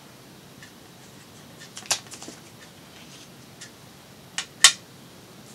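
Light handling taps of crafting tools on a cutting mat: a sharp click about two seconds in, then two sharp clicks close together near the end, the second the loudest, as tweezers are set down on the mat.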